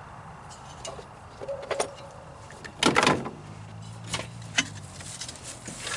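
Metal clanks and knocks from parts being handled in a car trunk as the original bumper jack is lifted out. The loudest clatter comes about three seconds in.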